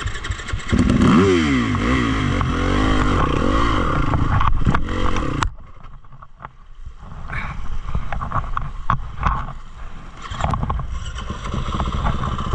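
Dirt bike engine revving up and down repeatedly, then dropping away suddenly about five and a half seconds in before running again.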